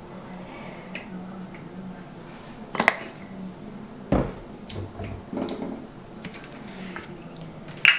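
Plastic dish soap bottle being handled and squeezed into a small dish: a few scattered clicks and knocks, with a low thump just after four seconds in, over a faint steady hum.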